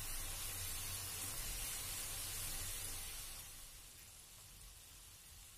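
Samosas deep-frying in hot oil in a kadhai: a steady sizzle that fades away after about three seconds.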